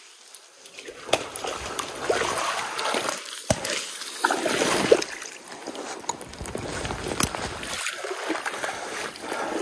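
Shallow stream water splashing and sloshing in irregular surges as a large king salmon is wrestled and handled by hand in the shallows.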